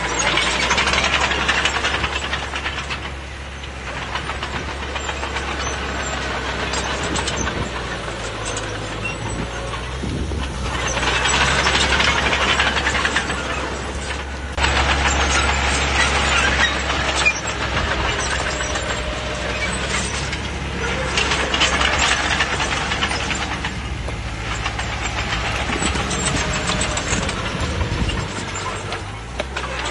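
Bulldozer's diesel engine running with a steady low drone, rising into louder stretches of noisy clatter every several seconds as the machine works.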